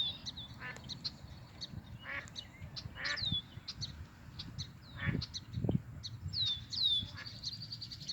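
Ducklings peeping over and over in high, falling distress peeps, with a few lower quacks from a hen mallard among them.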